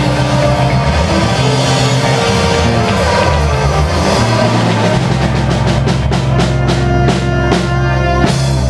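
Rockabilly band playing live: saxophone, electric bass and drum kit over held bass notes. From about halfway through, the drums come in with a rapid run of hits.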